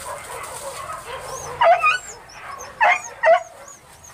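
Hunting dogs barking: three loud sharp barks, the first about a second and a half in and two close together near the end.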